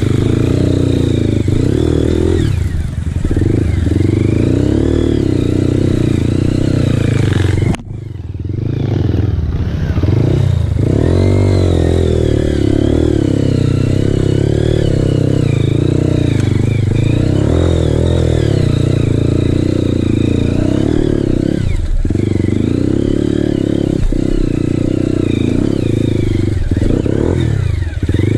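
Honda CRF four-stroke dirt bike engine revving up and down under load on a rutted trail climb. The engine note drops sharply about eight seconds in, then picks up again.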